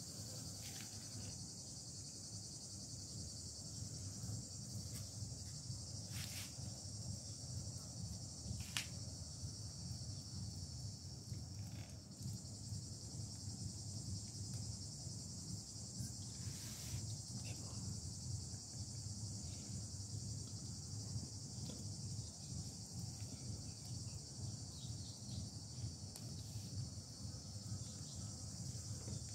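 Steady high-pitched chorus of insects, with a low hum beneath it and a few faint clicks.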